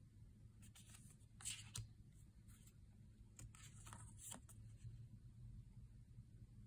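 Faint swishes of large oracle cards being slid off a stack and laid down on a velvet cloth, a handful of short strokes in the first half, over a low steady hum.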